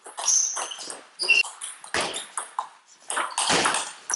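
Table tennis rally: the celluloid ball knocking against bats and table in quick irregular succession, with sports shoes squeaking briefly on the hall floor.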